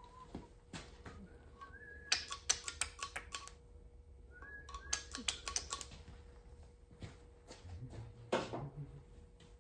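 Two runs of quick metallic clicking from the head of a Kwik-Way portable valve seat cutter being adjusted by hand, each run preceded by a short faint chirp. A brief scrape follows near the end.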